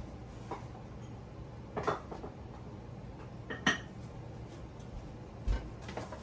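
Kitchen dishes and utensils clinking and knocking: a few separate clatters, the sharpest a little past halfway, and a dull thump near the end.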